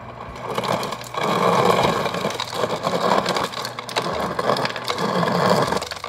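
Refrigerator door dispenser in crushed-ice mode: the ice crusher grinding ice cubes and the crushed ice rattling out of the chute. It starts about half a second in, gets louder about a second in, and cuts off just before the end.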